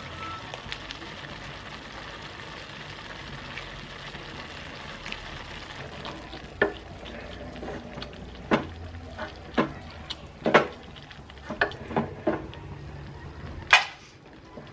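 Food frying and sizzling in a pan while it is stirred. From about halfway on, a utensil knocks and clinks against the pan about nine times, and the loudest knock comes near the end.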